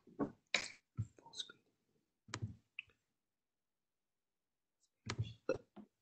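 A quick run of sharp clicks and knocks, then a gap of dead silence, then another short cluster of clicks about five seconds in. They come through a video-call microphone that cuts out completely between them.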